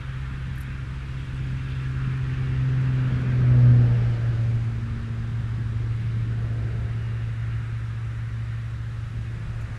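Low, steady engine hum that swells to its loudest about four seconds in and then drops slightly in pitch, as of a motor passing the microphone.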